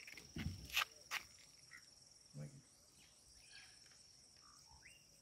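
Steady high-pitched trilling of insects, with a few sharp clicks about a second in.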